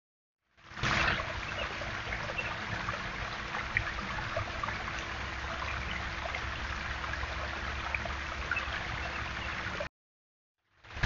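Water running and trickling steadily over a stacked-stone garden waterfall, with a faint steady hum underneath. There is a brief louder sound about a second in, and the sound cuts to silence near the end.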